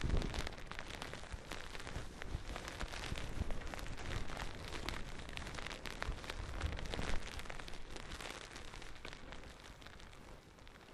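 Skis running through deep powder snow: a steady hiss with many small crackles, with a low rumble of wind on the microphone at the very start, growing quieter toward the end.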